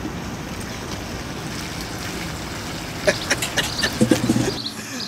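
Liquid nitrogen boiling in a steel stockpot around a submerged rubber dog toy: a steady fizzing hiss. About three seconds in comes a run of sharp clicks and knocks, and the background then changes abruptly.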